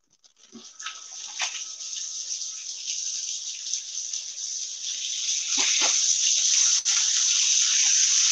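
Birria tacos, tortillas topped with cheese and meat, sizzling on a Blackstone flat-top griddle. The steady hiss builds over the first second and grows louder about two-thirds of the way in, with a couple of short spatula knocks at about the same point.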